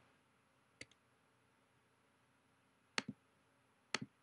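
Clicks of a computer mouse button: one faint click about a second in, then two sharp clicks about a second apart near the end, each a quick press and release.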